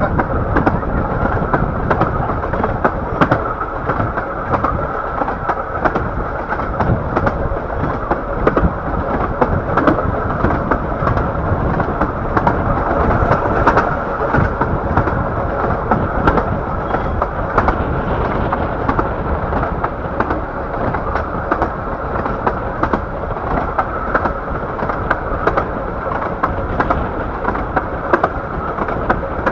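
Bure Valley Railway miniature train running along the line, heard from the front carriage: a steady rumble of wheels on track with irregular clicks and knocks.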